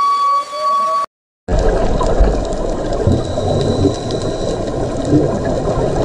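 Underwater water noise: a dense, low rumbling hiss with scattered low knocks. Before it, a steady high tone cuts off about a second in.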